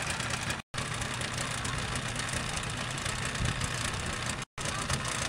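A boat engine idling steadily with a low rumble; the sound drops out for an instant twice.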